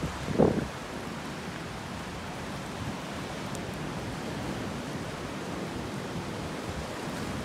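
Storm-driven sea surging and foaming over a flooded cove: a steady rushing hiss of water and wind, with a gust buffeting the microphone about half a second in.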